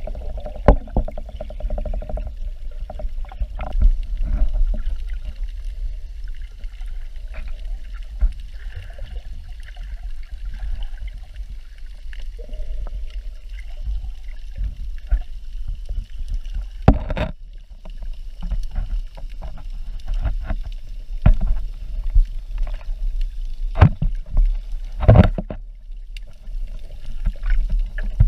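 Muffled underwater sound picked up through a GoPro Hero 4's waterproof housing: a steady low rumble of moving water with scattered sharp clicks and knocks, the two loudest a little past halfway and near the end.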